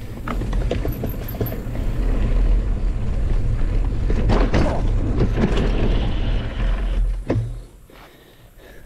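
Mountain bike riding a dirt trail: wind buffeting the microphone and tyres rolling over packed dirt, with the bike rattling and clicking over bumps. The noise drops sharply about seven and a half seconds in as the bike slows.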